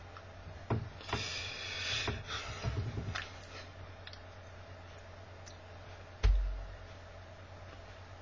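Handling noise from a person signing: a sharp click, then about two seconds of rustling and light tapping, then a single dull thump about six seconds in. A steady low electrical hum runs underneath.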